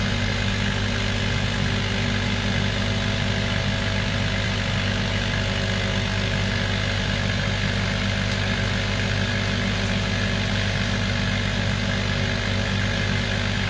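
Laser cutting and engraving machine humming steadily with its fans and pumps running: a low, even drone that does not change.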